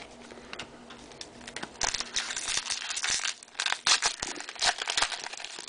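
Topps Chrome trading cards and their packaging handled between calls: crinkling, rustling and quick clicks. They are quiet at first and busy from about two seconds in, then fade near the end.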